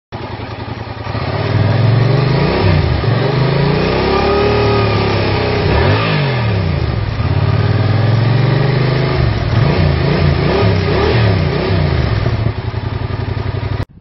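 Yamaha MT-07's 689 cc parallel-twin engine through its stock exhaust, revved up and down several times from idle. There are a few slow rises and falls in the revs, then a run of quick blips, and it settles back to a lower note before cutting off just before the end.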